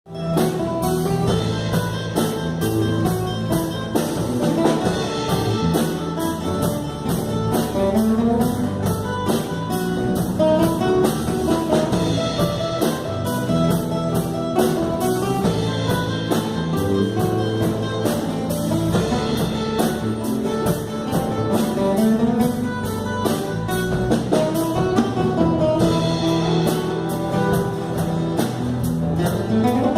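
A group of acoustic guitars playing an instrumental introduction over a steady beat.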